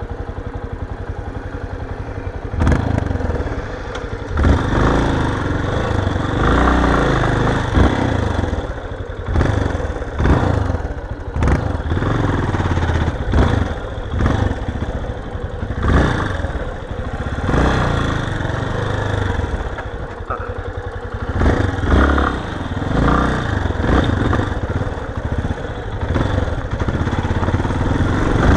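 Yamaha XTZ 250 Ténéré's single-cylinder four-stroke engine running steadily for a couple of seconds, then pulling away and revving up and down as the bike rides over rough, rutted dirt. Short knocks and rattles come from the bumps.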